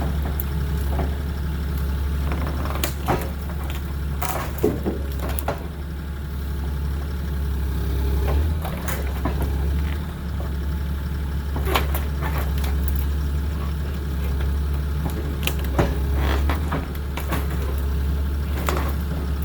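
An engine running steadily at a constant low pitch, with a few short sharp knocks scattered over it as the cedar logs are moved.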